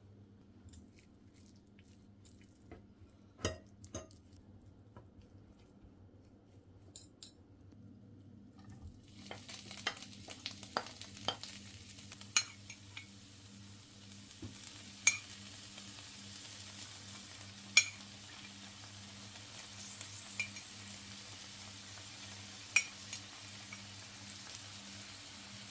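Food sizzling in hot oil in a pan, starting about nine seconds in, with a utensil clicking against the pan every two to three seconds as it is stirred. A few knocks come earlier, over a steady low hum.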